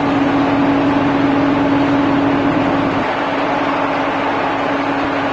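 Electric overhead crane's drive running with a steady hum over a broad mechanical noise; the deep rumble underneath drops away about three seconds in.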